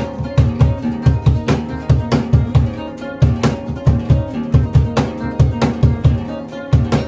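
Two acoustic guitars playing a song together, backed by a box drum (cajón) that gives deep low thumps several times a second, with sharper slaps between them.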